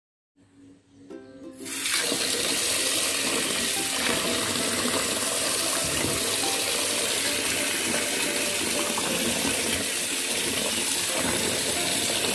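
Tap water running hard into a plastic tub of raw chicken feet in a sink, splashing over them as they are washed by hand. The water starts suddenly about two seconds in and then runs steadily.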